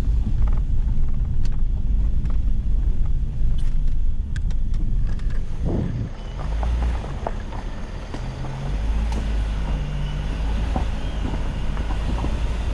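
Ford Escape 4x4 driving along a rough gravel road: a steady low rumble of engine and road noise, with scattered knocks and rattles from the bumps.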